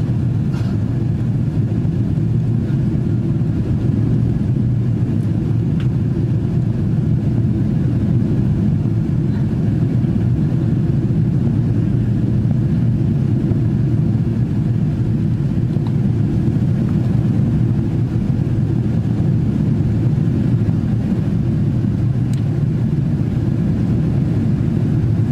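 Steady, low-pitched cabin noise of a Boeing 777-200 in the climb after takeoff: engine and airflow noise heard from inside the passenger cabin, unchanging in level.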